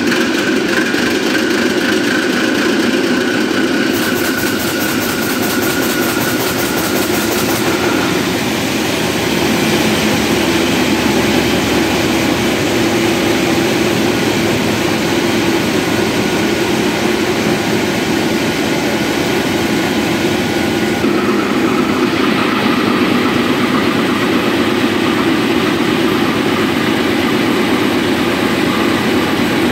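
Large Mirrlees Blackstone multi-cylinder diesel generator engine running steadily and loudly. A faint high whine over it shifts in pitch about 8 seconds in and stops about 21 seconds in, and a rapid fine ticking comes in briefly about 4 seconds in.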